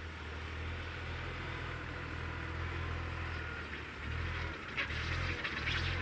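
Hitachi ZW40 compact wheel loader's diesel engine running steadily as the machine drives forward pushing snow with its bucket. A louder scraping hiss of snow joins in near the end.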